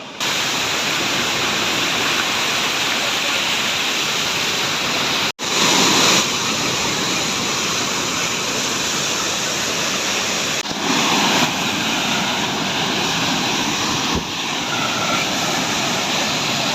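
Waterfall pouring into its plunge pool: a loud, steady rush of falling water, broken once by a sudden split-second gap about five seconds in.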